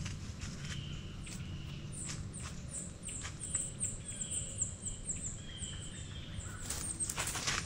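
Soft rustling footsteps with a steady outdoor rumble, the crunches growing louder near the end. Over them a small bird calls a quick run of thin, very high, short notes, about three a second, with a few longer whistled notes.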